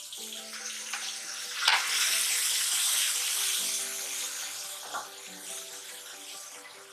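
Chopped tomatoes, green chillies and herbs sizzling in hot oil in an aluminium kadai as they are stirred with a wooden spatula. The sizzle swells about two seconds in and eases off toward the end, with two short knocks of the spatula against the pan, over background music.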